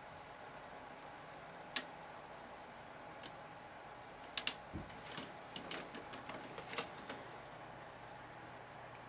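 Clicking on a laptop: one sharp click about two seconds in, then a quick, irregular run of a dozen or so clicks with a soft thump among them, from about four to seven seconds.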